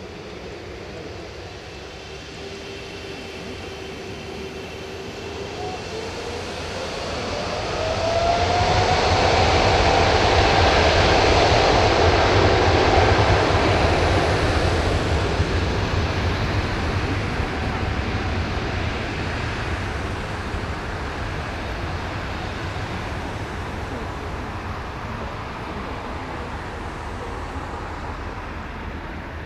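Boeing 777-300ER's twin GE90-115B turbofans spooling up to takeoff thrust. A whine rises in pitch about five to eight seconds in, then loud jet engine noise peaks and slowly fades as the airliner starts its takeoff roll away down the runway.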